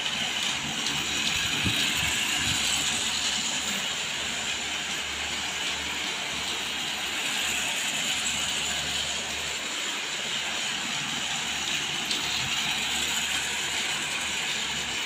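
Motorised toy cargo train running around a plastic track: a steady whirring and rattling of its small motor, gears and wheels, swelling and fading a little as it circles.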